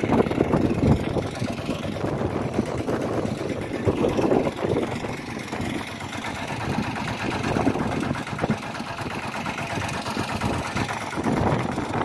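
Hand tractor's single-cylinder diesel engine running steadily while it pulls through wet paddy mud.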